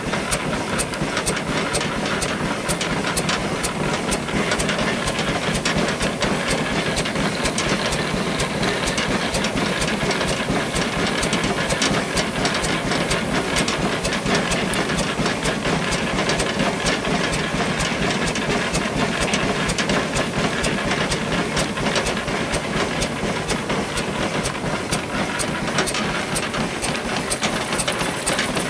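1920 Ruston steam engine driving a sawmill frame saw: a steady hiss of steam with a rapid, even clatter of machinery.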